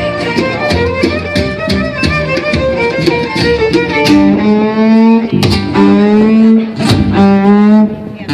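Live band music led by a violin over strummed guitar. A steady strummed rhythm gives way, about halfway through, to long held bowed notes.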